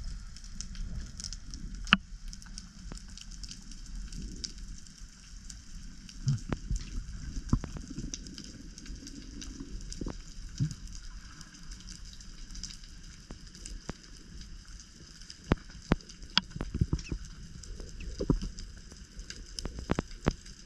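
Underwater ambience: a continuous crackle of scattered sharp clicks and pops over a low rumble of water moving, with a few louder clicks about two seconds in and more toward the end.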